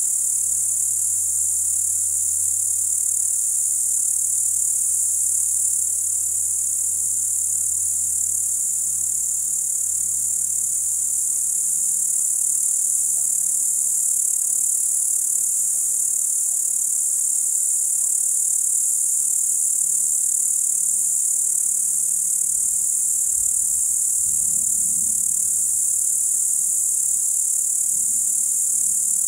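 Steady, shrill, unbroken chorus of crickets singing in the night. A faint low rumble of distant thunder comes in during the last several seconds.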